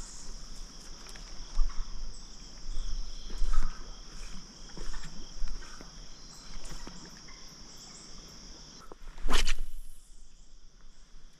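Insects trilling steadily in a high, even chorus that stops about nine seconds in, with scattered small knocks and one loud, brief rush of noise just after.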